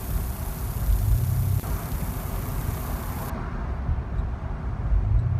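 Steady running of a vehicle engine with a noisy rumble and hiss; the sound changes abruptly twice, about a second and a half in and again past the three-second mark.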